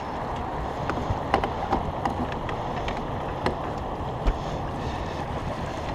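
Steady rushing of wind and river water around a small boat, with a few light knocks and clicks scattered through.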